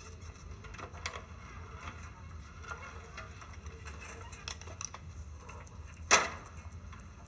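Quiet room tone with a steady low hum and scattered small clicks, broken by one sharp knock about six seconds in.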